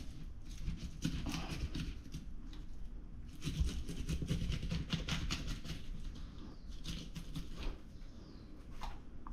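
Knife cutting through a small whole nannygai snapper to butterfly it: irregular crackling clicks and scrapes as the blade works through skin, scales and flesh, with wet handling of the fish on the board.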